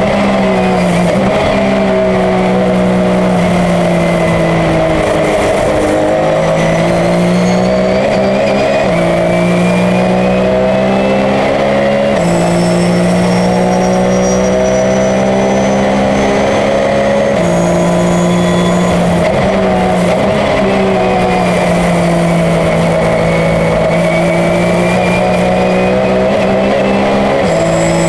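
Porsche 911 race car's flat-six engine running hard and loud, climbing in pitch with a quick step down at each upshift every few seconds. Twice it winds down to lower revs before pulling up through the gears again. It is heard continuously, with no pass-by.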